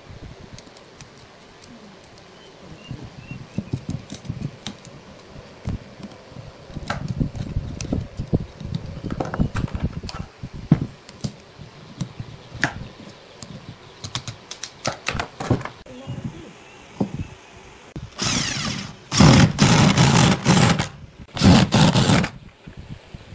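Small scattered clicks and knocks as worm-drive hose clamps are loosened with a screwdriver and a segmented wooden block is handled on a workbench. Near the end, a power drill runs in three short, loud bursts, driving screws through a metal lathe faceplate into the wood.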